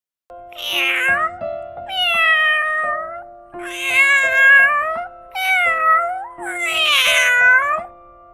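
Domestic cat meowing five times, each meow about a second long, over steady background music.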